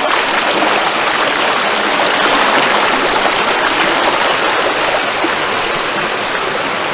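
A rocky river rushing steadily over stones.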